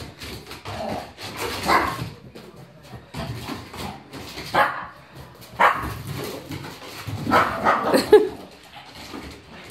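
Shih Tzu dog barking in several short bursts, worked up.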